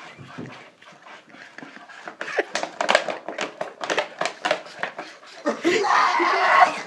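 A staged fight on a carpeted floor: rustling and quick thuds of bodies struggling, with heavy panting breaths. A louder, breathy outburst comes near the end.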